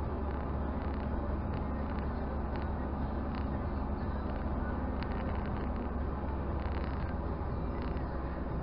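Steady in-cabin engine and road noise of a Toyota Celica cruising, a low rumble with a few faint clicks.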